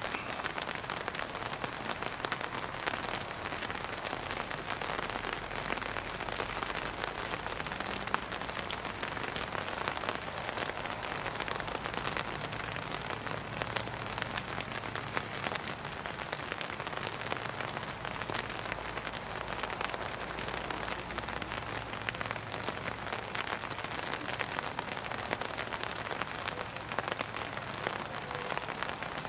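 Steady rain falling on open umbrellas and wet grass.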